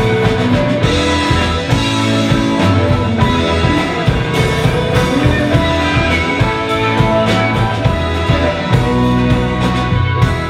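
Live rock band playing an instrumental passage: electric guitar, violin, drum kit and keyboards, with sustained held notes over a steady drum beat.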